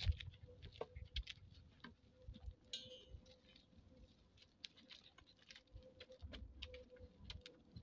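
Faint footsteps on a dirt path and stone steps, with scattered light clicks over an uneven low rumble on the microphone. A brief high chirp sounds about three seconds in.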